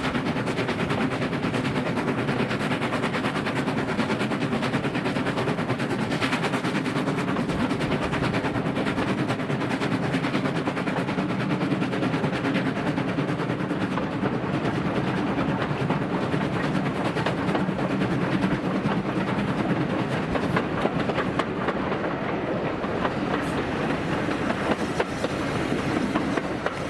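Ivatt Class 2 2-6-2T steam tank locomotive working up a gradient, its exhaust beats coming in a quick, steady stream over the rumble of wheels on rail.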